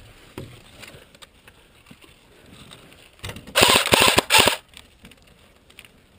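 Upgraded CYMA CM.028 AK47 airsoft electric gun firing a full-auto burst of a little over a second, a rapid run of sharp clicks, about halfway through.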